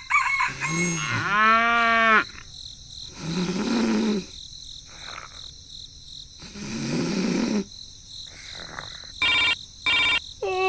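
Three drawn-out, pitched animal calls; the first rises and then falls in pitch. Two short beeps follow near the end.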